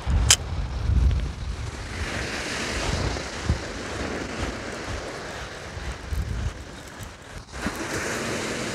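Surf breaking on a sandy beach, with wind buffeting the microphone in gusts that are heaviest near the start. There is a single sharp click just after the start.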